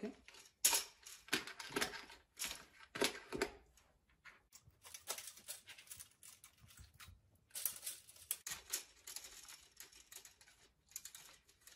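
Plastic Connect Four discs clicking and clattering as they are handled in the tray and dropped into the plastic grid: a run of irregular sharp clicks, some in quick clusters.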